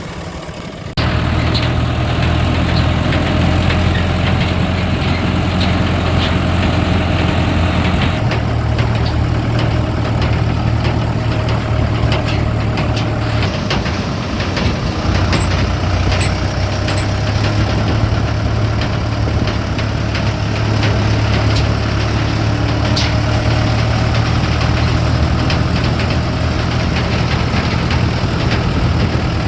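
Heavy diesel engine running steadily. Its sound jumps up suddenly about a second in, and the engine note shifts again around eight and thirteen seconds.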